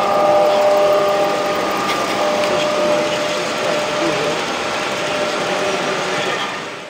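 A 1:32-scale Gauge 1 model freight train rolling past on its track. The motor whine of the model locomotives fades within the first couple of seconds, leaving the steady running noise of the coal wagons' wheels on the rails, with background chatter.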